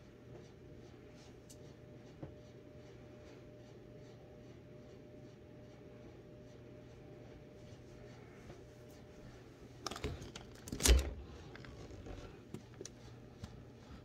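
Low steady hum with faint rustling and scratching of hands rubbing a bare belly and clothing, then a sharp knock about eleven seconds in.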